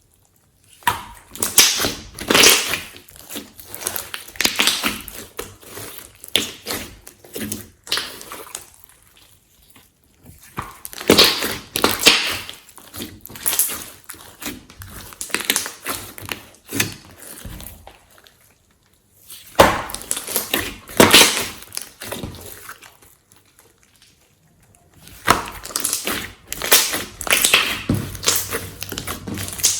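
Hands kneading and squishing glossy slime: irregular wet squelches and crackles, broken by a few short pauses.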